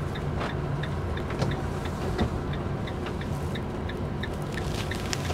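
Camper's engine and tyres running at low speed, heard inside the cab, with a light regular ticking about twice a second.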